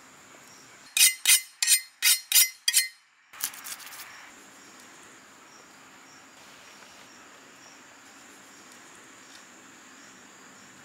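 A quick run of about six sharp, bright strokes, about three a second, then a steady high drone of crickets or other insects with a few faint clicks.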